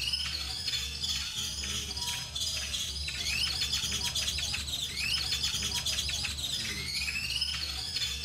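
Background music built on a loop of bird-like chirps: a rising whistle and a flurry of high chirps repeat about every two and a half seconds over a steady low hum.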